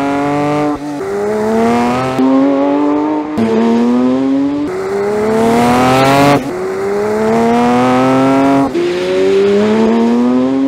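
2024 Porsche 911 S/T's 4.0-litre flat-six engine pulling hard under acceleration. Its loud note climbs in pitch, drops abruptly and climbs again about seven times, as the car goes through the gears and the shots change.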